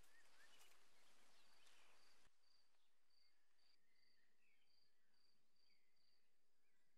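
Faint rural outdoor ambience, close to silence: a thin high chirp repeating about twice a second, with a few scattered bird chirps. A background hiss drops away abruptly a little over two seconds in.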